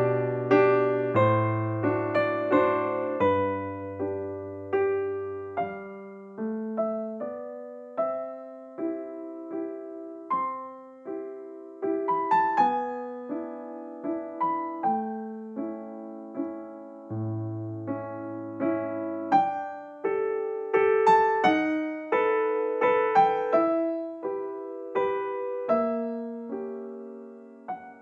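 Background music: a slow, gentle piano melody over held low bass notes.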